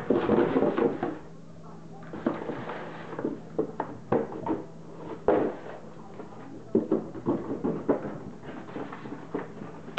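A puppy pawing and pushing at a cardboard drinks box: irregular knocks, scrapes and rustles of cardboard, with paws on a hardwood floor. It is loudest in the first second.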